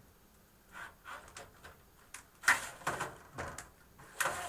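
Irregular small clicks and knocks of screws being started by hand into a metal rack-mount server case, the loudest knock about two and a half seconds in.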